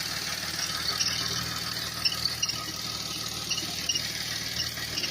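A 2013 Buick Enclave's 3.6-litre V6 idling steadily, with short high chirps repeating irregularly over it.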